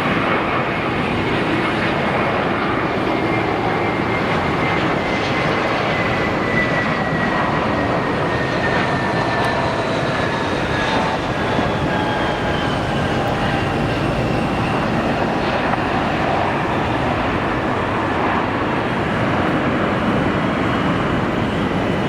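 Airliner engines running loud and steady, with a high whine that slowly falls in pitch as the plane passes.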